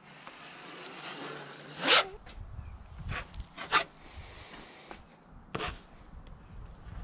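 A plastic spreader scraping across resin-wetted fiberglass cloth: a long stroke building to a loud scrape about two seconds in, then a few shorter strokes.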